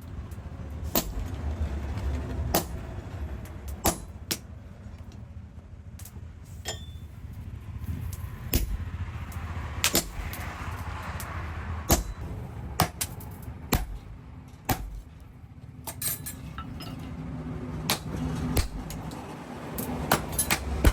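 Hammer blows on steel at a blacksmith's workshop: sharp, irregular metal clinks and knocks, roughly one a second, over a steady low hum, with a soft rushing noise near the middle.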